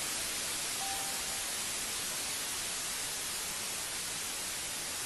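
Television static: a steady, even hiss from a TV tuned to a dead channel.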